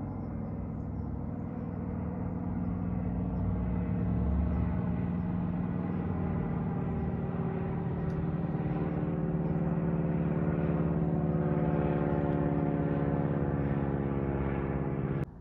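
An aircraft flying overhead: a steady engine drone with several held tones over a low rumble, building slowly in level and then cutting off suddenly near the end.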